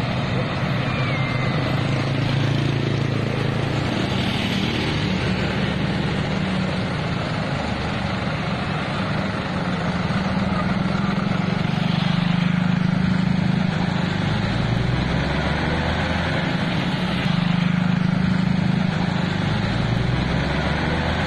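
Road traffic: motor vehicle engines running steadily, a continuous low engine hum under street noise.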